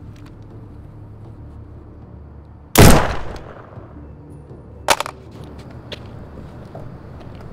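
A single gunshot about three seconds in, very loud, with a short echoing tail. About two seconds later comes a second, quieter sharp crack.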